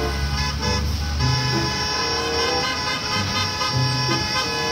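School bus horns honking in long, steady blasts as the buses pull away, with background music underneath.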